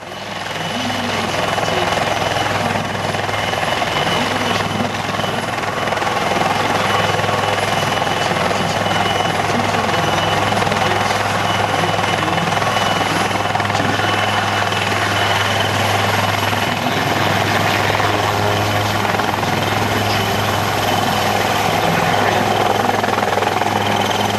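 HAL Dhruv twin-engine helicopter running with its main rotor turning, a steady deep rotor beat under a high turbine whine. It lifts off into a low hover.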